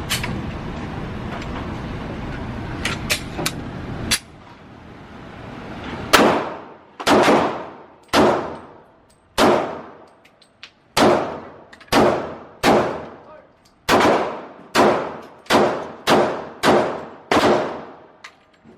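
A string of about thirteen gunshots, each with a long echoing tail, fired in quick succession and speeding up toward the end: rapid fire at a shooting range. Before the shots there is a few seconds of steady noise with a few sharp clicks.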